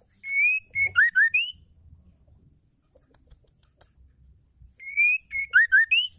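Female white-rumped shama (murai batu) whistling the same short phrase twice, about four and a half seconds apart: a rising whistle, then a few quick clear slurred notes ending on a higher upslurred note.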